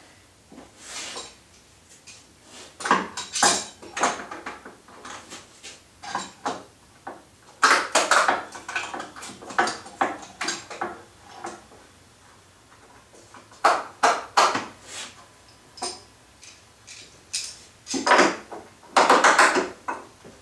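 Metal bar clamps being handled and tightened onto a freshly glued tabletop: clattering metal clanks and rattles that come in bursts every few seconds.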